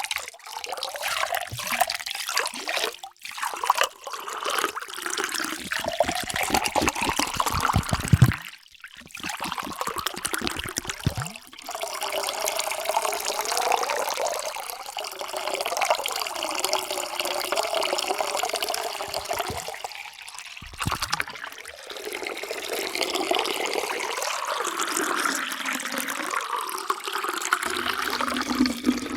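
Water being poured into a container in several separate pours with short breaks between them. During some pours the tone rises steadily in pitch.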